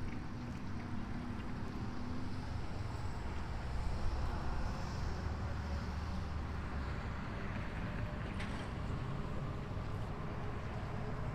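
Steady low rumble of heavy diesel engines running, with a broad hiss over it.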